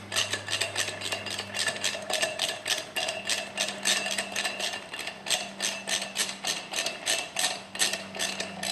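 Socket ratchet clicking steadily, about five clicks a second, as it backs out the oil filter housing bolt under a 1977 Honda CB750 engine.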